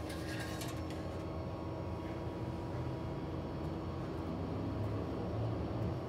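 Engine oil dipstick being handled in its tube: a short scraping rattle in the first second, over a steady low hum.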